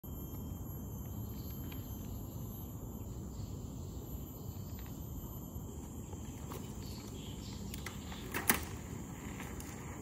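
Steady outdoor background of low rumble and a thin high insect drone, with a few faint handling clicks. About eight and a half seconds in, a short sharp clatter from the mountain bike as it is picked up and mounted.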